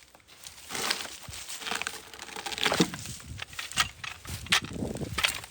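Irregular crunching and crackling with scattered sharp knocks, from dry wood and forest debris being disturbed, with the chainsaw shut off.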